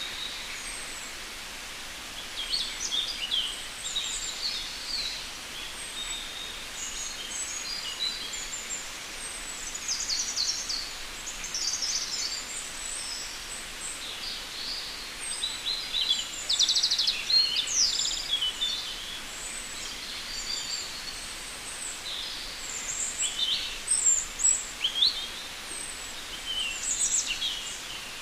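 Several birds singing and calling at once: a dense chorus of short, high chirps and trills overlapping one another, over a steady faint hiss.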